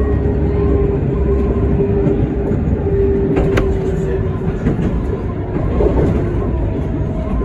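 Tram running along the rails, heard from on board: a steady rumble with a whine that sinks slightly in pitch, and a sharp click about three and a half seconds in.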